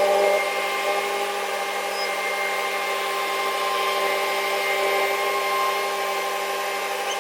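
A machine motor running with a steady whine made of several held tones.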